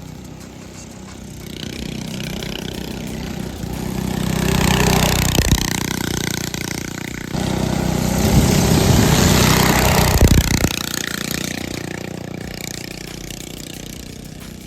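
Small gas engine of a go-kart with a torque converter, running as the kart is driven, swelling loud twice as it revs up and passes close.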